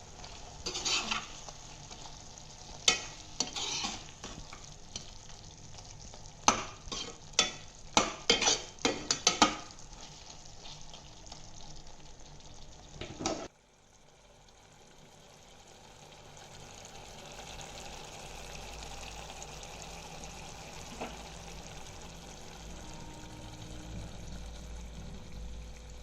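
A spoon stirring and scraping in a pan of frying food, with a dozen or so sharp knocks against the pan in the first half. After an abrupt cut about halfway through, a steady sizzle.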